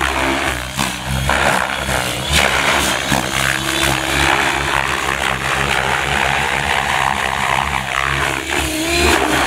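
Gaui X7 radio-controlled helicopter flying at high head speed: a steady whoosh of rotor blades over a humming drive, swelling and easing as it manoeuvres.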